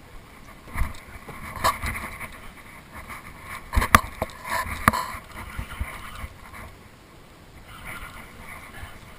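Irregular knocks and thumps of rod and gear handling on a small boat while a hooked fish is fought, the loudest a cluster about four seconds in, over a steady background hiss.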